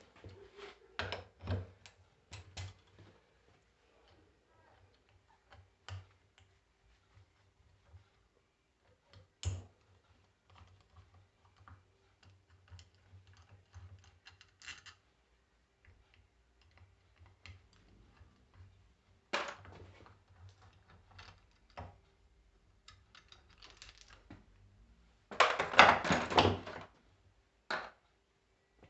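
Scattered clicks and knocks of small metal parts and tools being handled while a starter motor is taken apart, with a louder clattering run of knocks lasting about a second and a half near the end.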